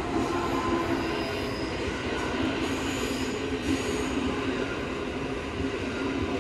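Steady hum of a stationary 223 series electric train's onboard equipment, heard in the driver's cab while it stands at a platform, with a few steady low tones over an even background noise.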